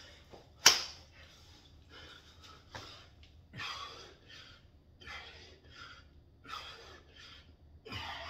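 A man breathing hard in short, rhythmic breaths, about one a second, while exercising. A single sharp knock comes about a second in.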